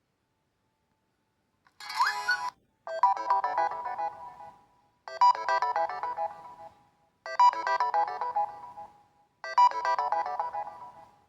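A Reeder P13 Blue 2021 smartphone's preset ringtone playing through the phone's speaker: a quick run of short bright notes, repeated four times about two seconds apart, each starting loud and fading. A brief sound with a rising sweep comes just before the first run.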